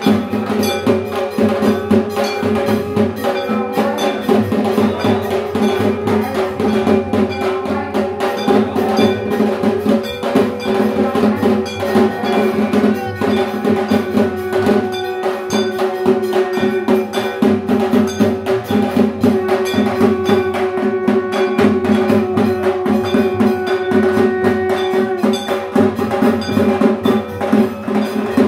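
Dhak drums beaten in a fast, continuous rhythm, with a steady ringing tone held under the drumming.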